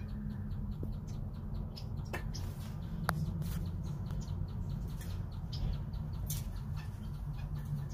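King quail peeping softly, a steady run of short high peeps several a second, with a few sharper clicks of pecking at the feed dishes, over a low steady hum.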